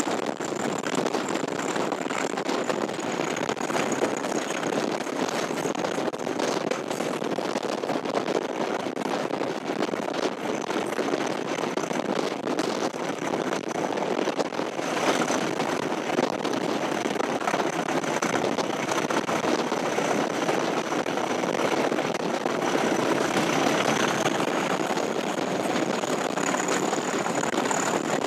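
English Electric Class 37 diesel locomotive D6700 hauling its train, heard from just behind it: steady engine and running noise with a high turbocharger whistle that sags a little early on and climbs again near the end.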